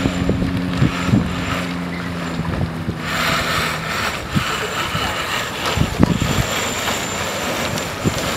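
Wind buffeting the microphone over the wash of water on the bay, with a boat engine humming low until it drops away about three to four seconds in. From about three seconds the hiss of wind and water grows louder, with scattered knocks from the wind on the microphone.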